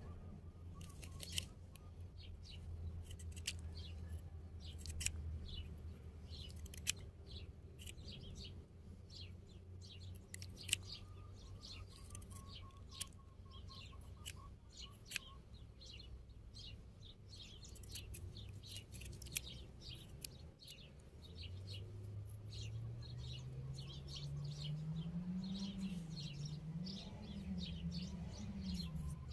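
Small birds chirping over a low hum, with a few sharp clicks scattered through. About two-thirds of the way in, a low drone starts and rises, then wavers up and down in pitch.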